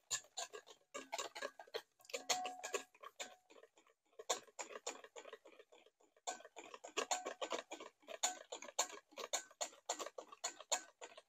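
Hand whisk clicking lightly against the side of a bowl as mayonnaise is whisked, a quick run of ticks at about four or five a second, broken by a couple of short pauses.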